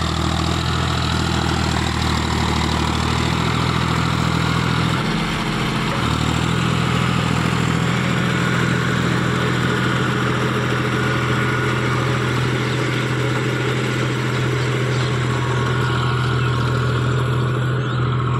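John Deere 5045D tractor's three-cylinder diesel engine running steadily under load while pulling a rotary tiller through the soil. The engine note changes briefly about five seconds in.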